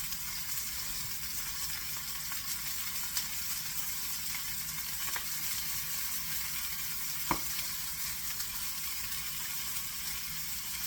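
Butterflied chicken frying skin side down in hot oil in a pan: a steady sizzle with scattered crackles and one sharper pop about seven seconds in.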